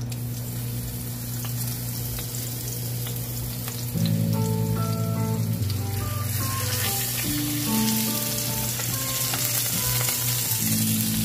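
Raw sirloin steaks sizzling in hot olive oil in a cast iron skillet as they are laid in one after another, the sizzle building as more meat goes in. Background music with changing notes comes in about four seconds in.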